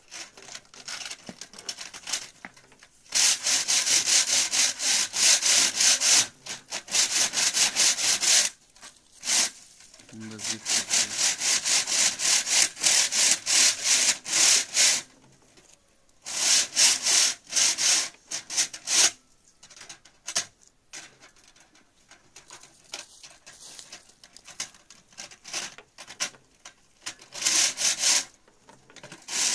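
Rapid, rhythmic scraping strokes, several a second, in bursts of two to five seconds with short pauses between.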